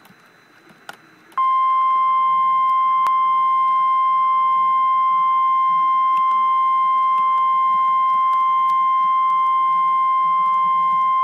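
NOAA Weather Radio warning alarm tone: a single steady 1050 Hz beep. It starts abruptly about a second and a half in and holds for about ten seconds before cutting off. It signals that a warning broadcast, here a severe thunderstorm warning, is about to follow.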